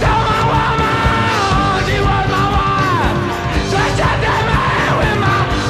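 Loud full-band rock music with a long held, shouted vocal note that bends down in pitch about two and a half seconds in, followed by more sliding shouted notes.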